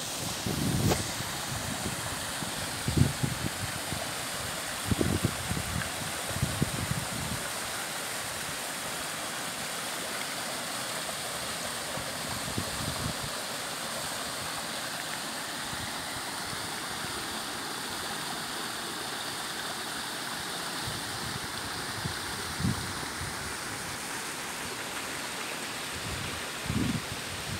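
Mountain stream running over boulders: a steady rush of water, with a few short low thumps of wind on the microphone in the first seven seconds and again near the end.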